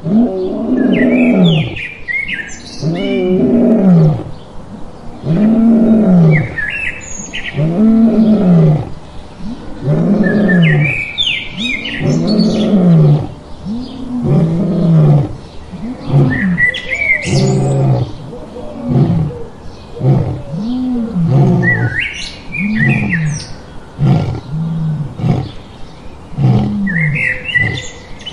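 Male lion roaring: a long series of low grunting calls, each rising and falling in pitch, about one every second and a half. Birds chirp in the background.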